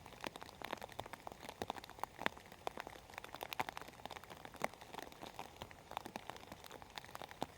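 Rain falling steadily, with many individual drops tapping and pattering irregularly close by over a soft hiss of rainfall.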